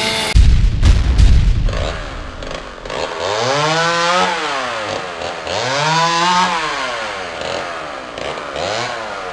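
A heavy boom with a few sharp hits, then a chainsaw revving up and down three times, its pitch rising and falling with each rev.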